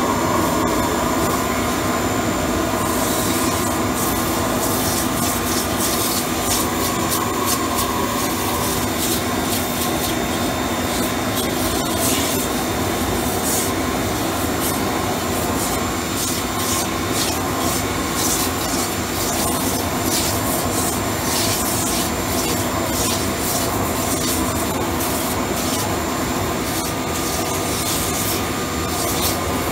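Pressure washer spraying a steady, loud jet of water through a rosebud-torch-heated mono-tube boiler steam attachment, with the machine's running hum underneath and irregular crackling through the spray from about three seconds in. It is on full flow, with the water only reaching about 100°F, too fast for an effective steam blast.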